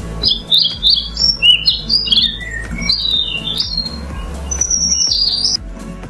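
Sparrows chirping: a quick run of short, high chirps for about three and a half seconds, then a pause and one higher call about five seconds in. Background music plays underneath.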